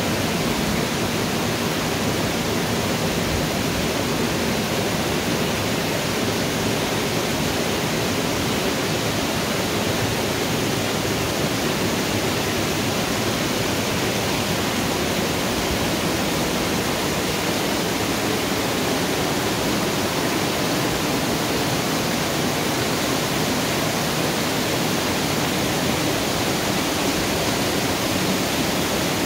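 Water rushing steadily through the open top-gate paddles of a broad canal lock, pouring into the chamber as it fills.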